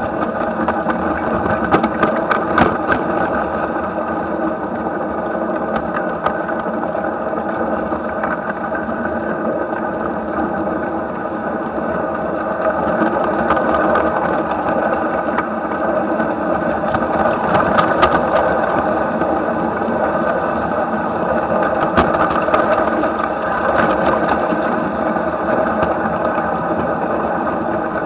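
A 7¼-inch gauge live steam model of a German Class 23 locomotive running, heard up close beside its cylinder and running gear: a steady mechanical clatter and hum with a few faint clicks and no break.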